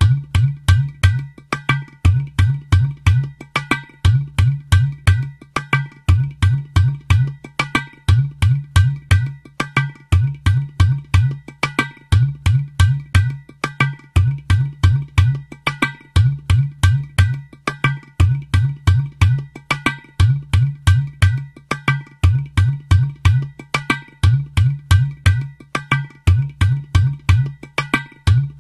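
Background music built on a repeating drum and percussion pattern with a steady beat.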